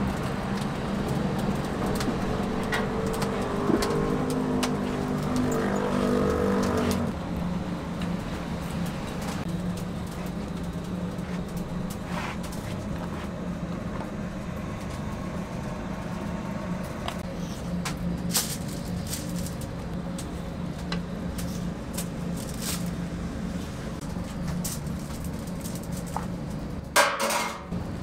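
Street-side background of traffic and a steady low hum, with a pitched engine-like drone over it for the first seven seconds until it cuts off. Scattered light clicks and knocks of handling are heard, and a short noisy clatter comes about a second before the end.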